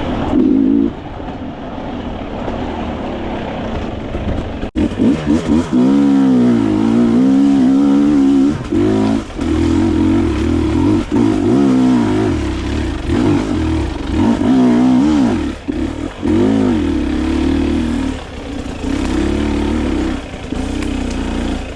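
Dirt bike engine revving hard, its pitch rising and falling again and again as the throttle is worked. It runs quieter for the first few seconds, then much louder from about five seconds in.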